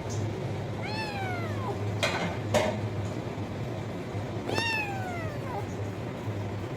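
Domestic cat meowing twice, each meow rising then falling in pitch, with two short noisy bursts between the meows and a steady low hum underneath.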